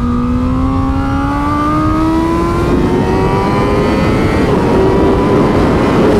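2021 Honda Fireblade SP's inline-four engine accelerating hard in one gear, its pitch rising slowly and steadily, with heavy wind rush over the microphone.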